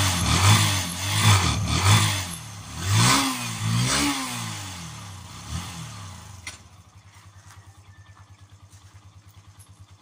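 Yamaha XTZ125's single-cylinder four-stroke engine revved in a series of quick blips, its pitch rising and falling several times. About six seconds in it drops back to a quieter, steady idle.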